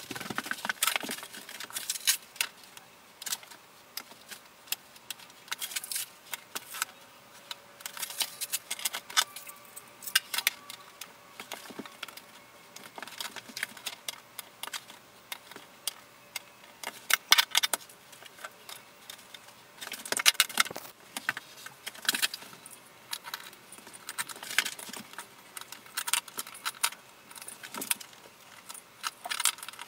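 Small Carrara marble mosaic tiles clicking and clattering against each other and the floor as mosaic sheets are set down and shifted into place. The clicks are irregular and come thickest about 17 seconds in and again around 20 to 22 seconds in.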